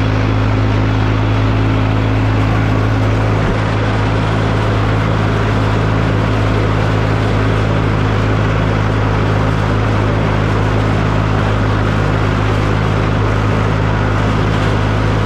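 John Deere 820 tractor's diesel engine running steadily under load while it pulls a New Holland 489 haybine cutting sorghum-sudangrass. It makes one even, unchanging drone with a strong low hum.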